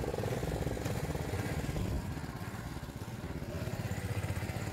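Small engine running steadily, with an even, fast firing rhythm.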